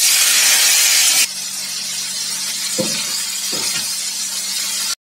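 Pieces of pona fish (young carp) frying in hot oil in a kadai: a loud burst of sizzling as they go into the oil, dropping after about a second to a steady sizzle.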